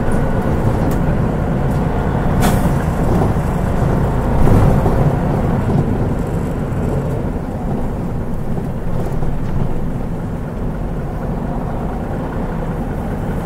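Mitsubishi Fuso Aero Star bus's turbocharged 6M70 diesel engine running while the bus is under way, swelling a little about four and a half seconds in and easing off later. There is a brief hiss about two and a half seconds in.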